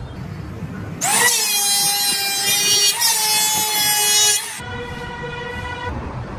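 Electric hand planer spinning up with a rising whine about a second in, then running at a steady high whine while it shaves wood, for about three and a half seconds before it cuts off abruptly.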